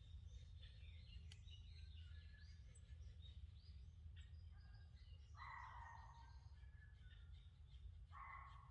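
Faint mixed birdsong in a forest, many small chirps and trills throughout. A louder, lower call comes in twice, for about a second from five seconds in and again near the end, over a steady low rumble.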